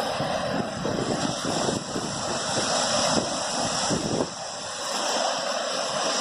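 Wind buffeting the microphone over a steady rushing hiss, the gusty rumble dropping away about four seconds in.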